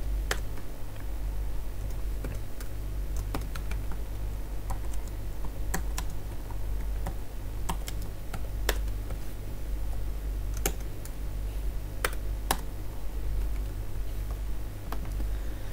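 Typing on a computer keyboard: irregular, scattered keystrokes, with a steady low hum underneath.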